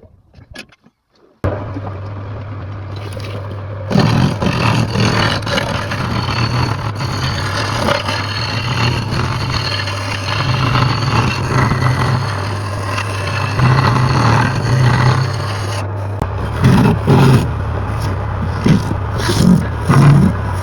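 A power tool's motor starts with a steady low hum, and from about four seconds in a loud scraping noise from working wood runs over it, turning into uneven pulses near the end.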